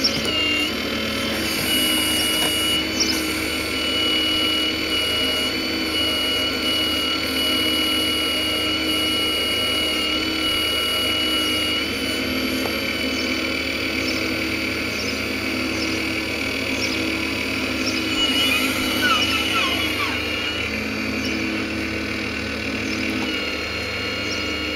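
Hydraulic pump and electric drive of a radio-controlled Hitachi Zaxis 870 LCH model excavator running with a steady whine as the arm and bucket dig. The pitch wavers up and down for a couple of seconds about three-quarters of the way in.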